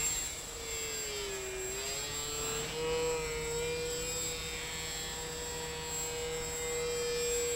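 Radio-controlled Batplane model aircraft's motor and propeller running overhead, a steady whine whose pitch dips about a second and a half in, then rises and holds level.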